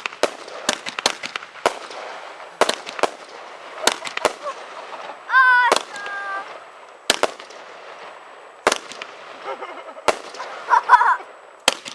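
Fireworks going off as sharp bangs and cracks at irregular intervals, about a dozen in all, over a steady hiss. A voice calls out briefly about halfway through and again near the end.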